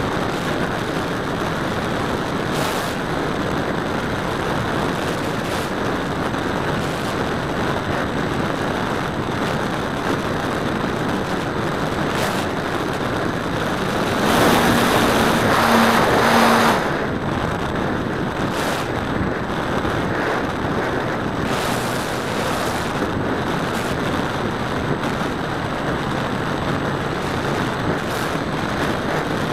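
Steady rush of airflow and motor noise from a camera riding on a radio-controlled model airplane in flight. It grows louder for about two seconds about halfway through.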